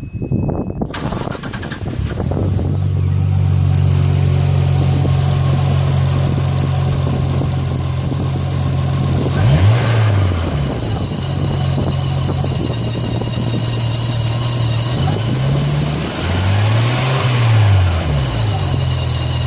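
Nissan RB25DET turbocharged straight-six starting about a second in and then idling, revved briefly near the middle and twice more near the end. A high-pitched whine sits over the engine sound; this whine is the noise under investigation.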